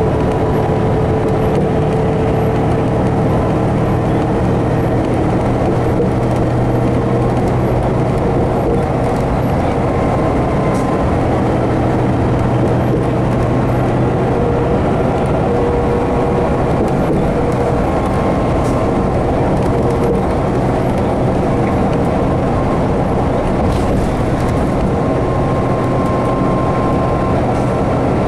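Steady engine and road noise inside a 2011 New Flyer D60LFR articulated diesel bus, its Cummins ISL 330 engine running with faint steady whining tones in the mix.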